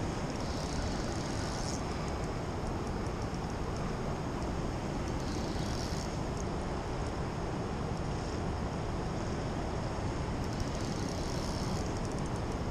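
Steady rushing noise of fast-flowing river water, even throughout and heaviest in the low end.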